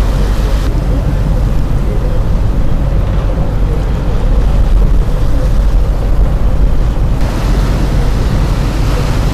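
A tour boat under way: a loud, steady low rumble of engine, water rushing past the hull and wind buffeting the microphone. The higher hiss eases off about a second in and comes back near the end.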